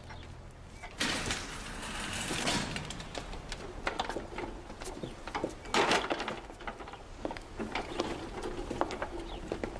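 Door sliding open and a wheelchair being wheeled over a wooden floor: a rush of noise about a second in, another briefly near the middle, and scattered clicks and knocks throughout.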